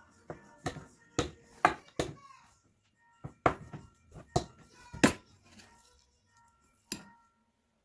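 Wooden rolling pin knocking and rolling against a wooden board as small rounds of dough are rolled out: about a dozen sharp knocks at uneven intervals. Faint music plays underneath.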